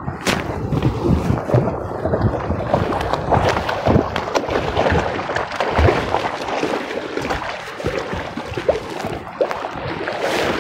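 Water splashing and churning at the shoreline as a large hooked fish thrashes in the shallows while being landed, mixed with close rustling and knocks.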